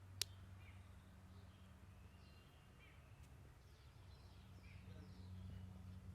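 Near silence: a steady low hum with faint birds chirping in the background, and one sharp click just after the start.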